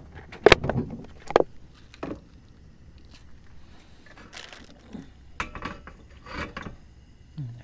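Cookware being handled at a portable camp stove: two sharp knocks about half a second and a second and a half in, then softer clicks, scrapes and rustles.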